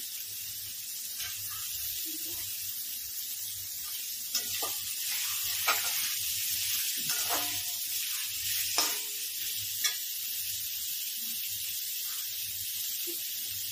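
Onion, peanuts and diced carrot sizzling in oil in a metal kadhai, with a slotted metal spatula stirring the mix and scraping the pan several times between about four and ten seconds in.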